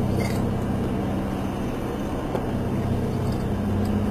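Subway train running: a steady low rumble and hum heard from inside the carriage.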